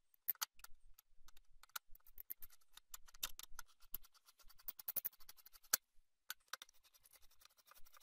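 Flat-bladed screwdriver working the spring-loaded screws that hold a desktop PC's CPU heatsink down: a run of faint, irregular small clicks and scratches, with a short pause about six seconds in.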